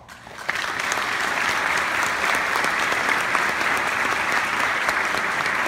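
Audience applause, breaking out about half a second in and holding steady.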